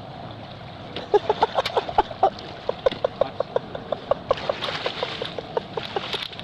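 Muddy water gurgling and sloshing around legs and a dirt bike's wheel in a shallow creek, in a run of quick, irregular pops, several a second.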